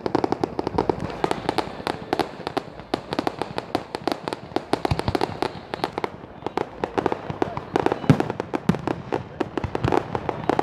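Fireworks display: a dense, rapid run of crackling pops and small bangs, several a second, with one heavier bang about eight seconds in.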